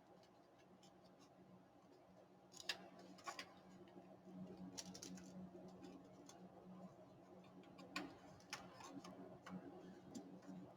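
Near silence: a faint steady hum with scattered soft clicks and taps, irregularly spaced, starting about two and a half seconds in.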